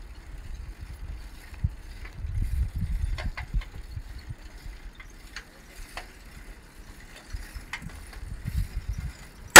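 Irregular low rumbling of wind and handling noise on a phone microphone, with scattered faint clicks. A single sharp, loud knock comes right at the end.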